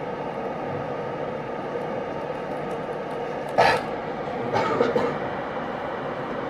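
Steady rushing background noise of a lecture hall's sound recording. Two brief sharp sounds come about three and a half and five seconds in.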